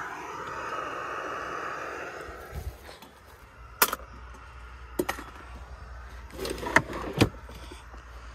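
Jetboil-style gas canister stove burner hissing steadily for about two seconds, then fading. This is followed by a few sharp knocks and clacks of gear being handled and set down.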